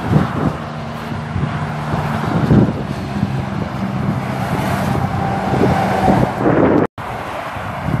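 Motorway traffic with a Mercedes-Benz Actros articulated lorry approaching: a steady low diesel drone and tyre rumble that grows louder toward the end, with wind buffeting the microphone. The sound cuts out for an instant near the end.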